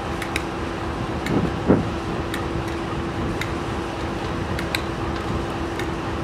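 Diesel locomotive idling: a steady drone with a constant hum, overlaid with scattered light ticks and one short louder swoop about a second and a half in.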